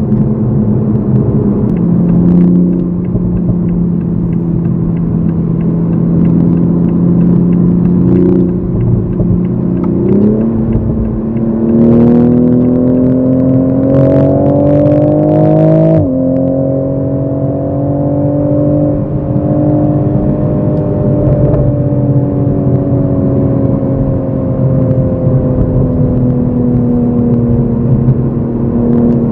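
Toyota GR Supra MK5 engine under way in sport mode: steady at first, then pulling hard through a gear with a rising note for about six seconds, a sharp drop in pitch at the upshift about halfway through, then cruising with a steady, slowly falling note.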